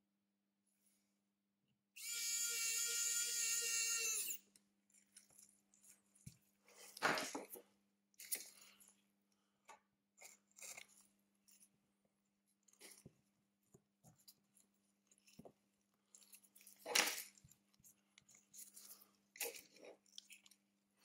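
A small electric motor whines steadily at one pitch for about two seconds, then stops. It is followed by scattered light clicks and taps of small tools and parts being handled during a phone repair.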